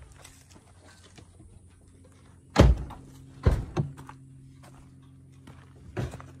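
Low steady drone of a car's engine and tyres heard from inside the moving car. A loud dull thump comes about two and a half seconds in, two more follow about a second later, and a softer one comes near the end.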